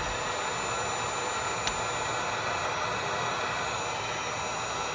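Heat gun running, a steady rush of blown hot air aimed at old caulk behind a granite backsplash lip to soften it. A faint short tick about a second and a half in.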